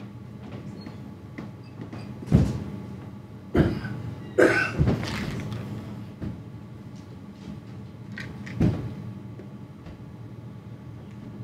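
Loud thumps: four in quick succession between about two and five seconds in, and one more near nine seconds. A short cough-like sound comes among them at about four and a half seconds, over a steady low room hum.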